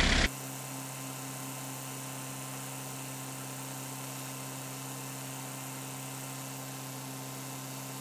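A steady low hum made of a few even tones, with no other sound; it starts abruptly just after the beginning.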